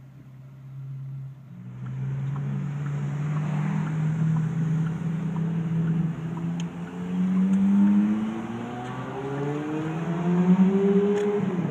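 Ferrari 430 Scuderia 16M Spider's V8 engine running low and steady, then accelerating hard twice, its pitch rising with each pull, the second pull dropping suddenly near the end, heard from a car following behind.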